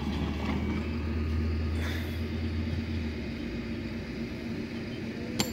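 Low, steady rumble of an idling vehicle engine, which drops away about three seconds in. A single sharp click comes near the end.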